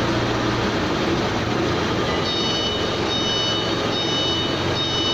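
CW62100Q heavy-duty lathe running, its spindle turning a long steel shaft: a steady machine hum and noise. From about two seconds in, short electronic warning beeps repeat a little faster than once a second.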